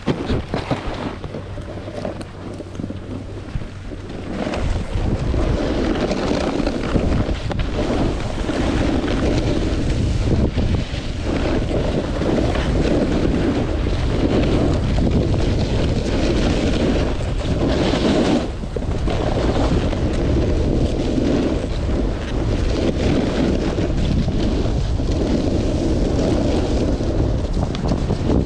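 Wind buffeting the microphone of a camera moving down a ski run, rising to a steady loud rush about four seconds in as speed picks up. Under it is the hiss and scrape of edges on the groomed snow, swelling and fading with each turn.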